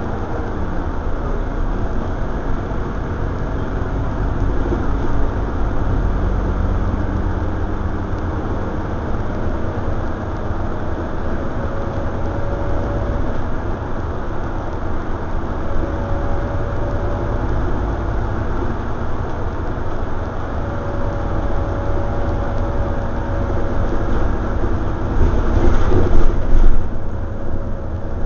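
Inside a Scania OmniCity single-deck bus under way: a steady low engine and road rumble, with a faint whine that comes and goes. Near the end there is a louder rushing stretch.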